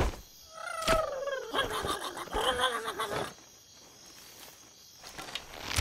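Animated creature's animal-like cries and snarls, wavering and bending in pitch, with a sharp hit at the start and another about a second in. The cries die away about three seconds in, leaving a quieter stretch.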